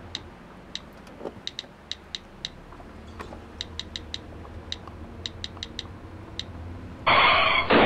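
Smartphone keyboard key clicks as a thumb types a text, short sharp ticks at an uneven typing rhythm, over a low steady car-cabin hum. About seven seconds in, a sudden loud burst of noise cuts in and lasts about a second.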